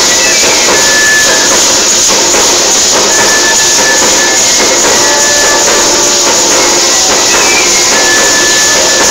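Many Parachico dancers shaking their chinchín rattles together in a dense, continuous loud shake, while a cane flute plays short held high notes over it.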